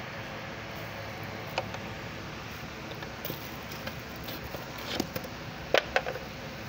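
Light crackles and ticks of plastic sheeting and dry straw being disturbed over a steady background hiss. A few sharper crackles come near the end.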